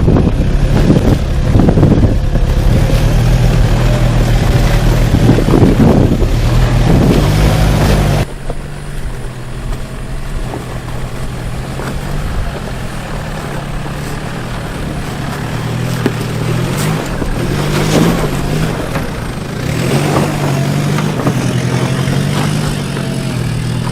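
Engine of an off-road 4x4 running at low revs while rock crawling, its pitch stepping up and down. Heavy low rumble from wind on the microphone for the first eight seconds, then an abrupt drop to a quieter engine sound with a few short knocks.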